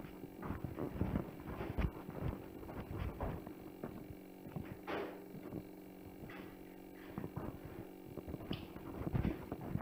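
Irregular knocks and thuds in a home audio recording being played back, several a second at times and some with a low rumble, over a steady electrical hum. The uploader takes these for the effects of underground detonations under the house.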